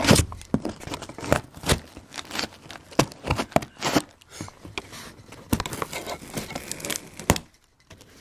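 Scissors snipping and scraping at a cardboard shipping box, with a dense run of irregular crackles, rustles and tearing sounds from the cardboard and packing; it drops to a brief lull near the end.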